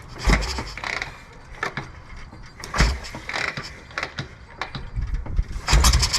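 Kick-starting a 1981 Harley-Davidson Shovelhead V-twin: three heavy kicks about every two and a half to three seconds, each a low thump with a mechanical clack as the engine turns over without catching.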